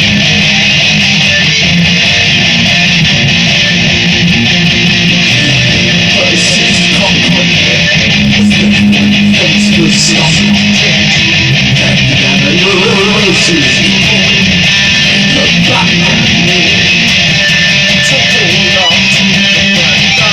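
Electric guitar playing an instrumental passage, strummed and picked, recorded loud and dense on a phone.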